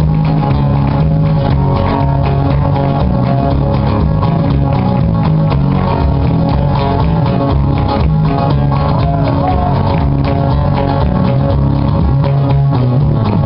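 Live flamenco music: acoustic guitars strumming and picking over a bass, with sharp percussive handclaps and heel strikes from the dancer's footwork.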